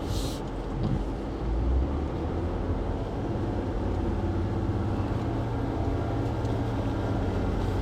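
Jeep engine running steadily at low revs while crawling a rocky trail in low range, heard from inside the cab, with a brief hiss at the very start.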